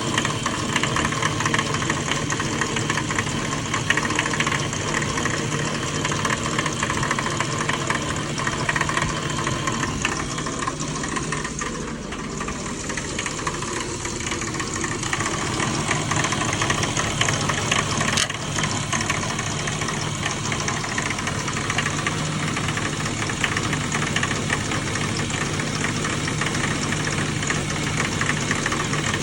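BMW E36 M3 straight-six engine idling steadily with a clanking, knocking noise from the engine, of a cause the owner has not found.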